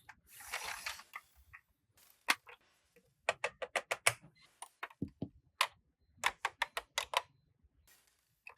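Hard plastic toy pieces clicking and tapping together: a brief rustle near the start, then a run of sharp, separate clicks, several a second.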